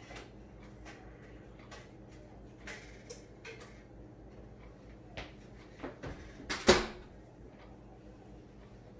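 Kitchen handling sounds: scattered light knocks and clicks, with one sharper clattering knock about two-thirds of the way in, over a steady low hum.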